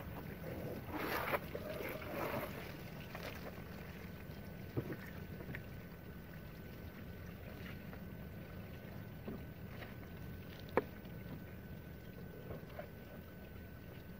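Garden hose spray splashing on a car's rear window and bodywork, strongest in the first two or three seconds. It is followed by a low steady background with a couple of sharp knocks.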